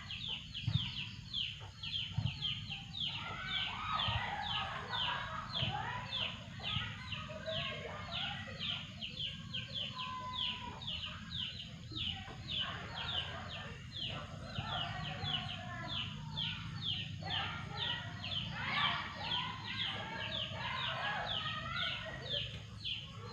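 Chickens clucking on and off, over a high, rapidly repeated chirping call, about two to three a second, that goes on throughout.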